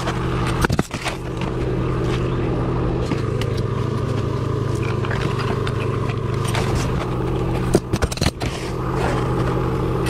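A steady motor drone under sharp knocks and scrapes of roofing work on asphalt shingles: a couple of cracks just under a second in and a quick cluster of them around eight seconds in.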